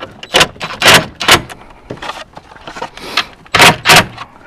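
Sharp metallic clicks and knocks, about five loud ones among smaller clicks, from hand tools working the bolts inside a car door.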